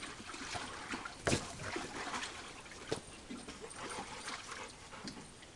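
Dogs playing in and around a pool: water splashing and trickling with the dogs' movement, and two sharp knocks, one about a second in and one about three seconds in.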